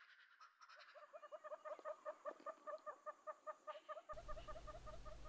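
A bird calling in a faint, rapid run of short, evenly spaced notes, about five a second, starting about a second in; the call is typical of a ground bird such as a francolin or guineafowl. A low steady hum comes in near the end.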